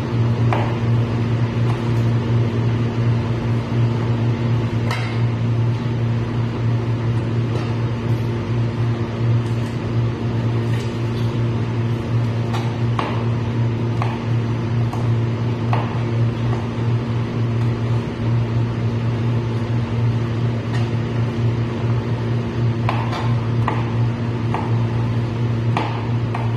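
A steady low machine hum runs throughout. Over it, a kitchen knife taps irregularly on a plastic cutting board every second or two as yardlong beans are sliced.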